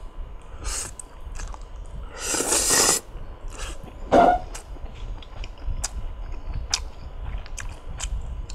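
A man slurping fried instant noodles, one long loud slurp about two seconds in after a brief first one, then a short cough about four seconds in. Chewing and small clicks of wooden chopsticks against the bowl follow.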